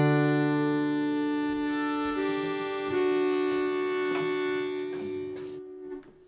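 Melodica, blown through its mouthpiece tube, holding a sustained chord with a few notes shifting about two and three seconds in. The chord then fades and stops about six seconds in, ending the song.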